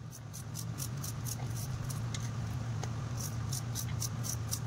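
Small serrated knife slicing through a hand-held onion to dice it finely: short crisp cuts about three times a second. A steady low hum runs underneath and is the loudest part.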